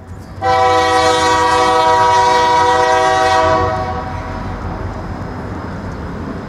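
Union Pacific diesel locomotive's multi-chime air horn sounding one long blast of about three seconds from a train still out of sight, then dying away, with a steady low rumble underneath.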